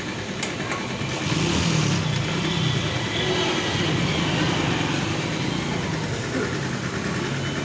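Steady mechanical hum of a petrol station forecourt: an engine running at idle and the fuel dispenser pumping petrol into a motorcycle's tank. It gets a little louder about a second in.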